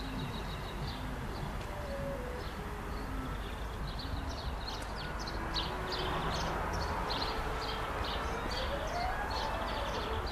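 Outdoor ambience with many small birds chirping. A distant siren rises and falls once, slowly, in the second half, over a steady background hum.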